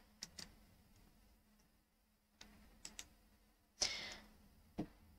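A few faint, scattered clicks of a computer mouse being used, with a short breath-like hiss about four seconds in.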